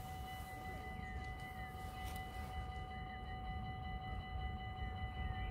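Dutch level-crossing warning bells ringing steadily, several bell tones at once, while the crossing is closed for a train. A low rumble from the approaching FLIRT electric train begins to build near the end.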